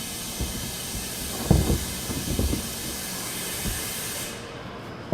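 A steady hiss that cuts off near the end, with a few dull low knocks as the plastic water tank is lifted up and bumps into the van's spare tire cavity.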